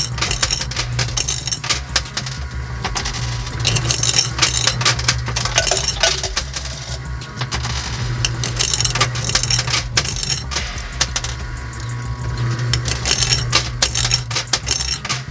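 Coins clinking and dropping in a coin pusher machine, quarters clattering in repeated clusters, over a steady low hum.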